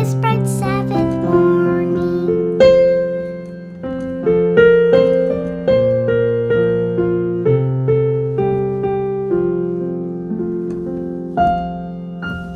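Piano or keyboard playing an instrumental melody over held low notes, each note struck and then fading. A final chord is struck near the end and left ringing.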